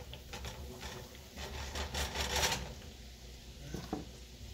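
A cooking utensil stirring and scraping minced garlic in melted butter in a nonstick frying pan: a run of rough strokes over the first two and a half seconds, then it stops.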